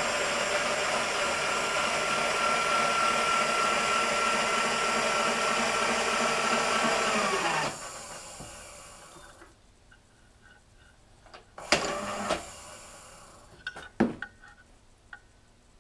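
An electric motor-driven shop machine running steadily with a hiss and a high whine, then switched off and winding down with falling pitch about eight seconds in. A few sharp metal clicks follow near the end.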